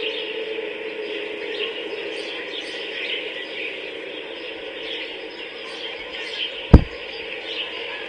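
Outdoor park ambience of birds chirping, with one sudden, very loud low thump about two-thirds of the way through.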